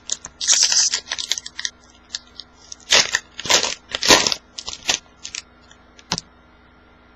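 Wrapper of a 2011 Upper Deck football card pack crinkling and tearing as it is ripped open, in several short bursts, with lighter crackles after about five seconds.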